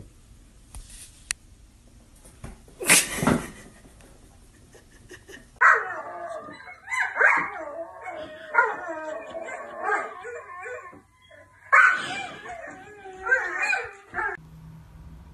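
A puppy yipping and whining in a run of high, wavering calls, with a short pause partway through. About three seconds in, before the calls, there is one short, loud noise.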